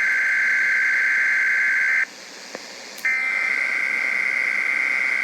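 SAME digital alert header from a weather radio broadcast: two long raspy data bursts, each nearly three seconds, a second apart, the coded header of a required weekly test.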